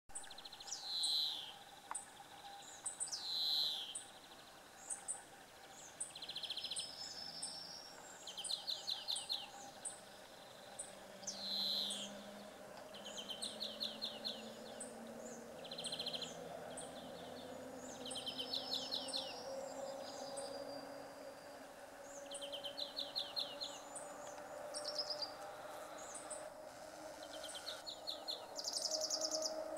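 Several songbirds singing: falling whistled notes, fast rattling trills and a high chirp repeated about twice a second, over a faint low hum that slowly shifts in pitch.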